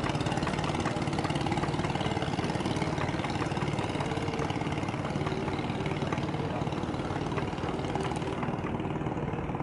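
Marine engine running steadily: a deep, even hum with hiss above it, the hiss dropping away near the end.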